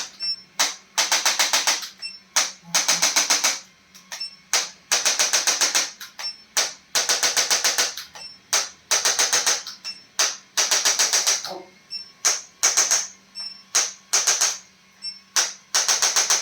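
Rapid mechanical ticking in bursts of about a second, each a fast rattle of many clicks, repeating every second or two with single sharp clicks in between.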